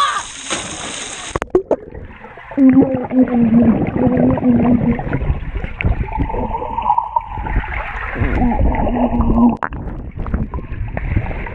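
Water splashing and spraying, then from about a second and a half in the sound goes muffled and dull as it is heard underwater in a swimming pool: water sloshing and bubbling, with low drawn-out humming tones now and then.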